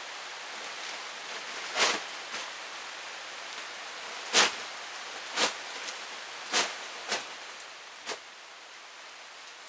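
Steady rain falling on a tarp stretched over open roof framing, with about six sharp taps spread through it, the loudest about two and four and a half seconds in.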